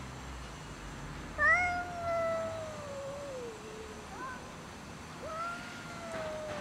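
Cats yowling at each other in a standoff over food: a long, drawn-out yowl that starts loud about a second and a half in and slides down in pitch, a short rising cry, then a second long yowl falling in pitch.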